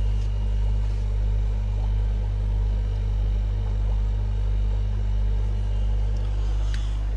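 Steady low electrical hum of fish-room air pumps and filters, with a faint hiss of air and water over it. A light click comes near the end.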